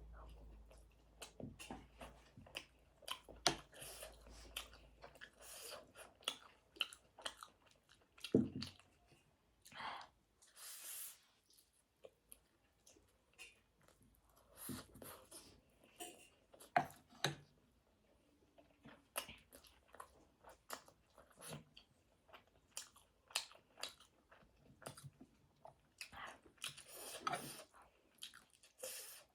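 A person chewing and biting food close to the microphone: a quick, irregular run of mouth clicks and crunches, with a few longer noisy stretches.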